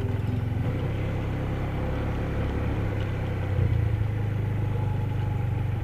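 Yamaha Xeon 125 scooter's single-cylinder engine running steadily while riding slowly along a dirt road, briefly a little louder about three and a half seconds in.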